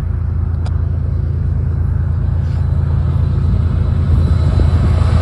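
Diesel-electric freight locomotives approaching under power: a deep, steady engine rumble that grows slowly louder as they draw near.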